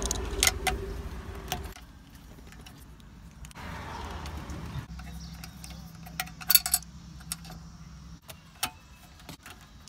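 Small metal clicks and clinks of screws, a screwdriver and a steel anti-theft bracket on a car radio's metal chassis as the bracket's screws are taken out. A few sharp clinks come near the start, a quick loud cluster about six and a half seconds in, and another clink near the end, over a faint low hum.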